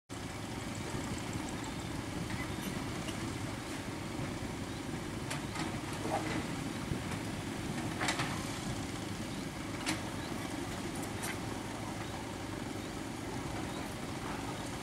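Komatsu mini excavator's diesel engine running steadily, with a few sharp metallic knocks from about five seconds in as the machine works among the stones.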